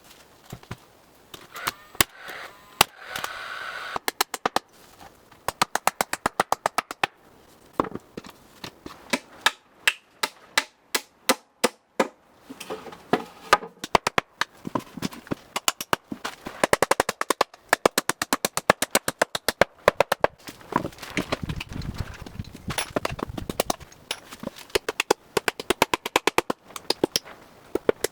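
Runs of sharp, shot-like bangs from nailing boards together, several a second with short pauses between runs.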